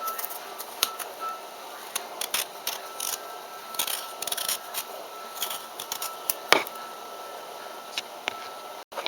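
Kitchen knife peeling a black radish: irregular short scrapes and clicks of the blade on the root, with one sharper knock about six and a half seconds in.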